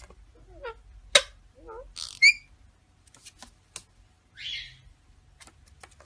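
Indian ringneck parakeets chirping and clicking in short bursts. There is a loud, sharp high call about two seconds in and a brief raspy call near the middle.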